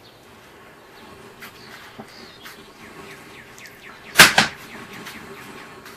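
Sewer inspection camera's push cable being pulled back onto its reel: scattered clicks and small squeaks over a low hum, with one loud clunk about four seconds in.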